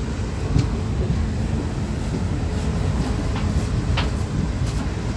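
A moving passenger train running on the track, heard from the doorway of its coach: a steady low rumble with a few sharp clicks from the wheels.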